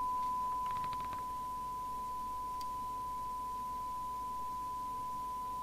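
Steady 1 kHz test tone from the York JCB863 FM CB radio's receiver, demodulated from the signal generator's 100 microvolt test signal and played through the radio's speaker while its S-meter is set up. It drops slightly in level about a second in.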